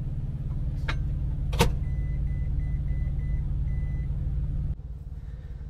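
Microwave oven door clicking shut, then its keypad beeping as the cooking time is entered: about six short, evenly spaced beeps and one longer beep. A steady low hum runs underneath and drops abruptly near the end.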